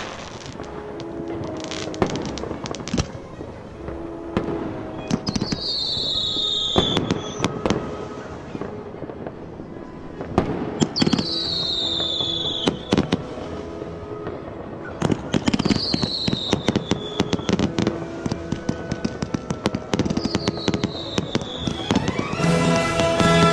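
Fireworks banging and crackling in dense volleys over background music. A high falling whistle recurs about every four to five seconds, and the music comes up stronger near the end.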